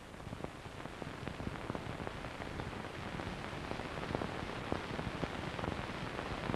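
Steady hiss with many scattered clicks and crackles, the surface noise of an old film soundtrack.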